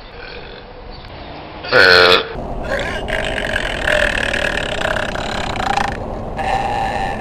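A woman belching: one short, loud burp about two seconds in, then long drawn-out belches that run on for several seconds with a couple of brief breaks.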